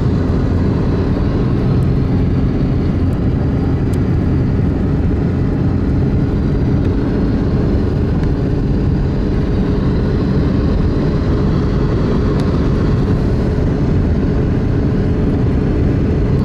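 A car driving, with a steady rumble of road and engine noise.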